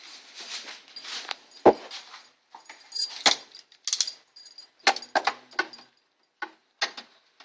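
Ratchet wrench loosening a small bolt in a car's engine bay. About two seconds of rasping ratchet strokes, then a series of separate metallic clicks and clinks: the ratchet skipping as the bolt comes loose.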